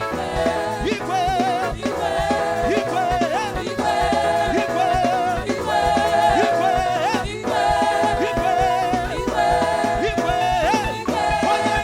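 Gospel praise music: voices singing over a band with a steady beat, the sung line repeating in short phrases.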